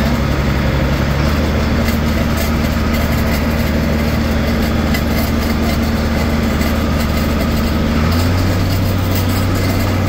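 John Deere 4255 tractor's six-cylinder diesel engine running steadily at working speed, heard from inside the cab, with the PTO-driven John Deere 435 round baler running behind as it picks up hay to form a bale. The engine note changes slightly about eight seconds in.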